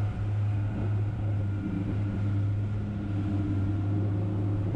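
Twin outboard motors running at steady cruising speed, a constant low drone, with the rush of the boat's wake.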